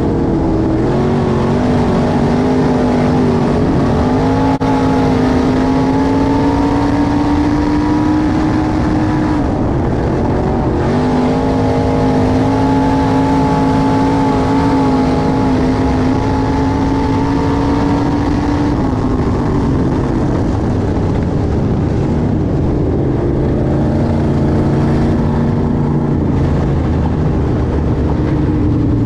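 A dirt-track limited modified's fresh V8 engine, heard from inside the car, running hard at racing speed with a brief lift of the throttle about ten seconds in. About two-thirds of the way through it eases off to a lower, steadier pitch.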